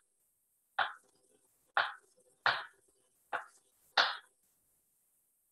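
Kitchen knife chopping portobello mushrooms on a plastic cutting board: five sharp chops, less than a second apart, stopping about four seconds in.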